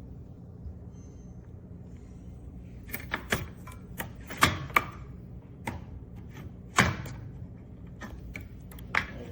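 Irregular sharp clicks and knocks, beginning about three seconds in and loudest twice near the middle, over a low steady hum.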